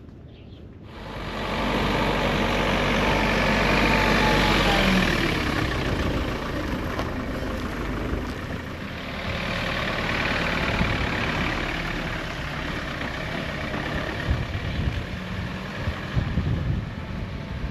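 A motor vehicle running, with steady engine hum and road noise that come in about a second in.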